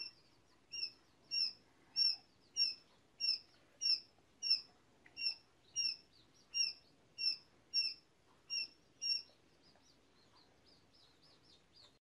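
Tiny yellow hatchlings peeping: a run of short, high, slightly falling cheeps, about one and a half a second, then fainter, quicker peeps near the end.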